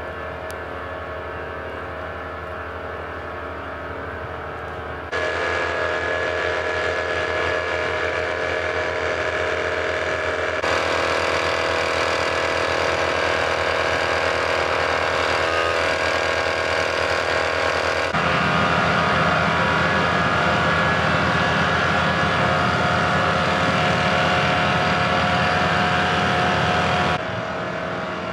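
Fire truck engines running steadily at idle, heard in several spliced takes: the sound jumps abruptly louder about five seconds in, shifts again about eleven and eighteen seconds in, and drops back near the end.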